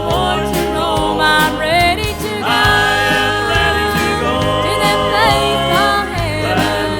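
A country-style gospel song: sung voices over instrumental accompaniment with a steady bass.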